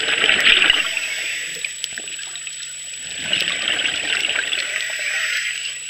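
Bubbling of a scuba diver's exhaled air underwater, coming in two bursts about three seconds apart.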